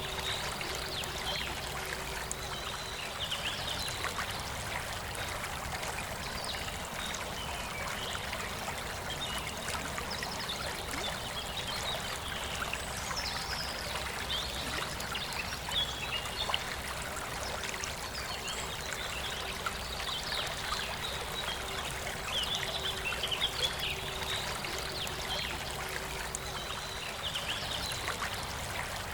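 Forest river flowing, a steady rushing hiss of water, with birds chirping in short, repeated bursts over it.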